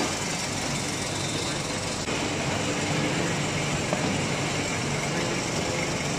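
Hydraulic metal-swarf briquetting press and its hydraulic power unit running, a dense, steady machine din with a low hum. It gets a little louder about two seconds in, with a single small click near four seconds.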